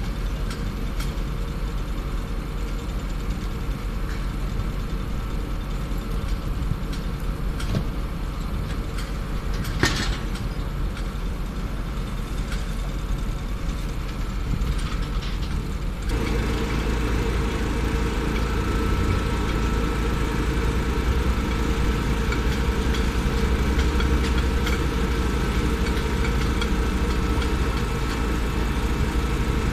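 Construction machinery engines running steadily at a concrete pour, with one sharp knock about a third of the way in. About halfway through the running gets louder and a steady higher hum joins it.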